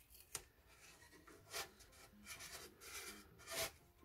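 Masking tape being worked by hand inside a plastic valve-radio cabinet: a few short, faint scratchy rubs as it is pressed and smoothed into place, the loudest near the end.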